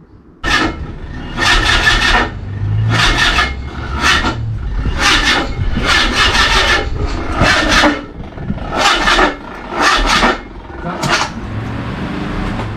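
Mazda MX-5 engine being cranked by its starter motor, turning over slowly and unevenly without firing, with a rasping surge about once a second. The engine seems to reach a point each turn and have to pass something stiff.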